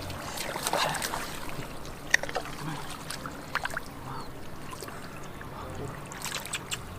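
Shallow muddy water sloshing and splashing irregularly as hands grope through it for fish, with a sharp splash about two seconds in.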